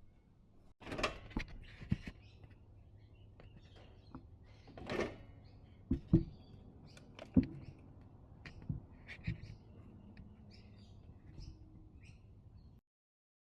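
Irregular clicks and knocks of hand tools and metal parts being handled during work on a car, over a low steady hum; the sound cuts off abruptly near the end.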